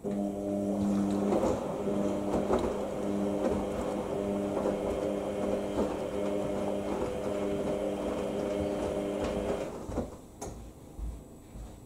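IKEA RENLIG IWM60 washing machine's drum motor turning the drum in the wash, a steady hum with the load tumbling and sloshing. It starts at once and stops about ten seconds in as the drum pauses, leaving a few light clicks and knocks.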